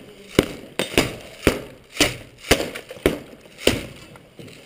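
Footsteps at a walking pace, a sharp knock about every half second to 0.6 s.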